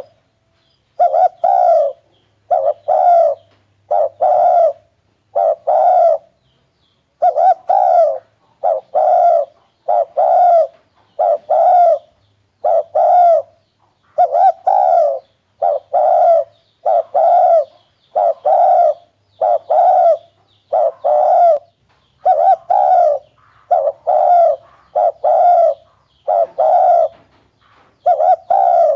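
Spotted dove cooing: a steady series of short, low coos, about one a second, with a few brief pauses.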